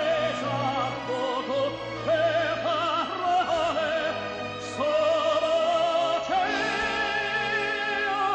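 Operatic singing with orchestral accompaniment; the voice holds long notes with a wide vibrato.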